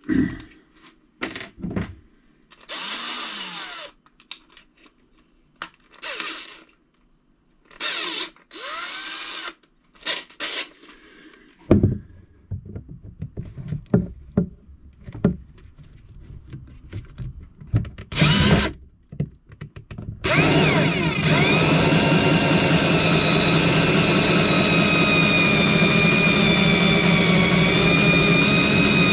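Cordless drill boring through the moulded plastic wall of a kayak's battery compartment: short scraping bursts and knocks at first, then about two-thirds of the way in the drill starts and runs steadily with a whining motor tone.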